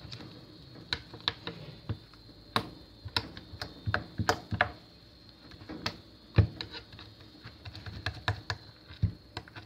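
Foam slime with styrofoam beads being worked and scraped out of its pot, giving irregular sharp clicks and pops over a faint steady high whine.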